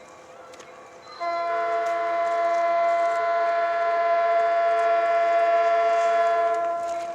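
A diesel locomotive's multi-note air horn sounding one long, steady chord, starting about a second in and cutting off near the end.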